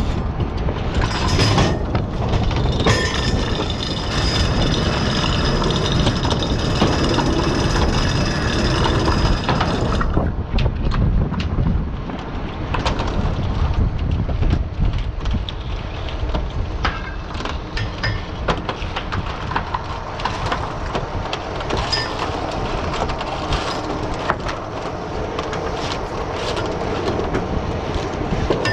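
Oyster dredge boat's engine running under a steady rumble of wind and water, with oysters and shells clattering as they are culled by hand on the wooden culling board. A high steady whine runs over the first third and stops about ten seconds in.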